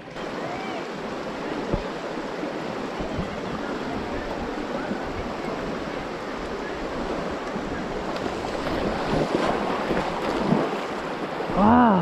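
Steady rushing of river water over rocks, an even hiss. A short voice sounds briefly near the end.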